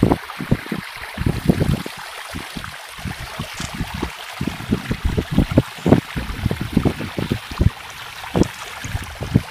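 Wind buffeting the microphone in irregular low rumbles, over a steady hiss.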